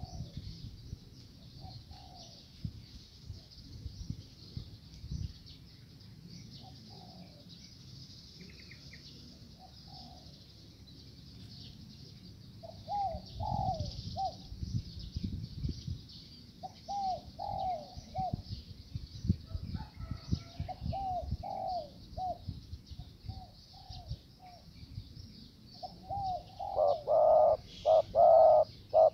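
Spotted doves cooing: short repeated phrases of coos, scattered through the first half, then loud and close in a quick run of calls near the end.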